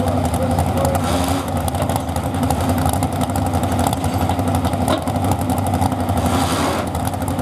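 Modified 4x4 pulling truck's engine running steadily and loud, with the truck stopped at the end of its pull.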